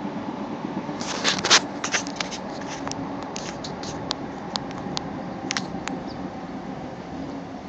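Handling noise from a handheld camera: a run of small clicks and rustles, loudest about a second and a half in, over a steady low hum.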